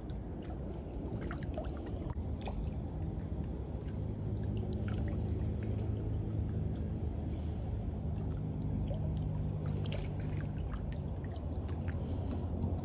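Water sloshing and trickling over a low steady hum, with scattered small clicks. Crickets trill in fast pulses high above it, dropping out twice for a few seconds.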